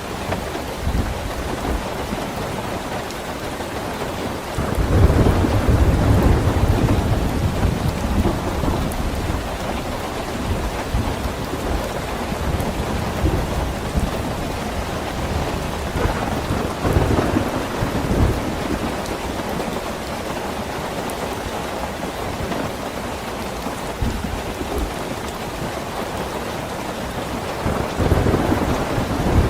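Steady heavy rain falling, with low rumbles of thunder rolling in and out. The loudest rumble comes about five seconds in and lasts a few seconds, a weaker one comes around the middle, and another near the end.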